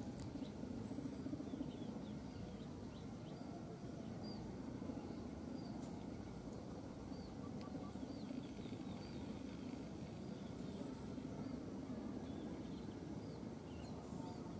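Outdoor ambience: a steady low background hum with many faint, short bird chirps high up, and two brief high-pitched notes about ten seconds apart.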